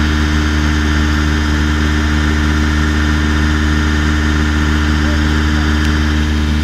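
An engine idling steadily, a constant low hum that does not change in pitch.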